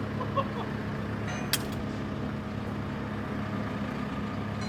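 Heavy engine idling steadily, with a single sharp click about a second and a half in.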